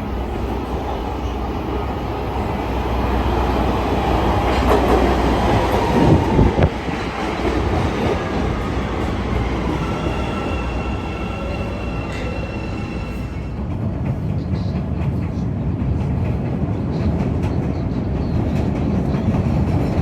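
Chicago CTA rapid-transit train running on the rails with a steady rumble. It is loudest about six seconds in, where a pitch sweeps downward. A faint steady whine is heard from about ten to thirteen seconds, and light clicks come in the second half.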